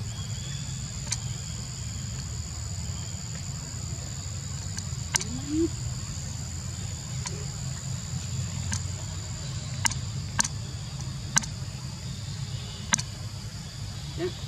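Insects droning steadily at a high pitch over a low rumble, with about half a dozen sharp clicks scattered through and a brief rising note about five seconds in.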